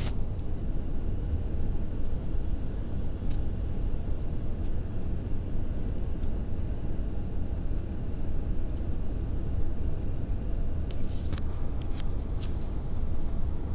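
Cabin noise inside an Airbus A340-300 on final approach: a steady low rumble of the CFM56 engines and airflow over the fuselage. A few short clicks and rattles come once early on and in a cluster near the end.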